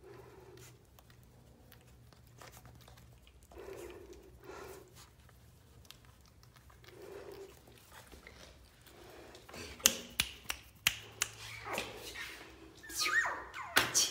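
Pomeranian puppy playing: a few faint, soft low grunts during the first seven seconds, then a run of sharp clicks and short high yips over the last four seconds.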